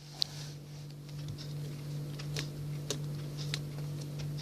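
Slime being stretched and squeezed by hand, giving scattered small sticky clicks and crackles over the steady low hum of a running air conditioner.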